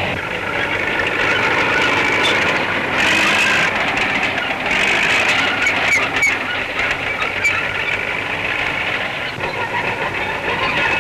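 Tractor engines running with a steady mechanical clatter and scattered knocks, heard on an old film soundtrack.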